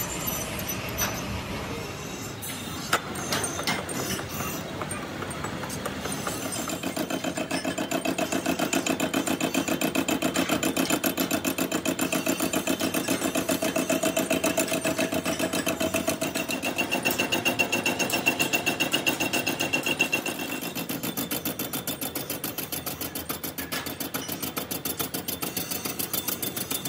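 Metal lathe running a spinning cutter disc that machines the face of a cast-iron pump body. The cut makes a rapid, even chatter with a ringing tone, louder from about six seconds in and easing off near the end. A few sharp metal clinks come early.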